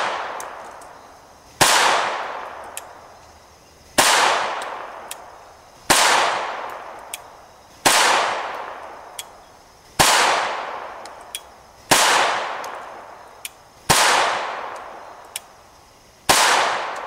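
Chiappa 1911-22 semi-automatic pistol firing .22 LR rounds in slow, aimed single shots, eight in all, about two seconds apart. Each crack is followed by a long fading echo, and a faint small tick comes between some of the shots.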